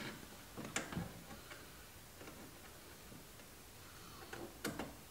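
A few faint clicks and taps with light rustling as hands work the loose headliner cloth and its fittings overhead. The clicks come in small clusters about a second in and again near the end.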